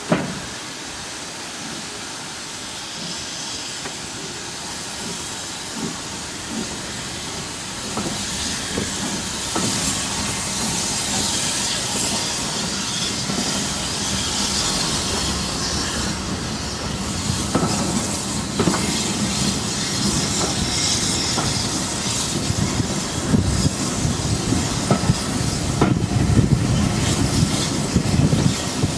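A steam-hauled heritage train pulling away from a station and gathering speed, with steam hiss and rushing noise building, and the carriage wheels knocking over the rail joints more often toward the end. A single sharp knock sounds right at the start.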